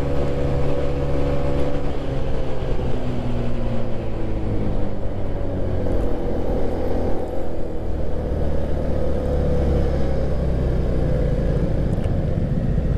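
Motor scooter engine running while under way, with wind and road rush; the engine note drifts in pitch with the throttle and eases down in the later seconds as the scooter slows.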